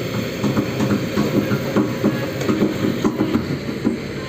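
Heavy machinery engine running with a rapid, uneven clatter, several knocks a second over a steady low rumble.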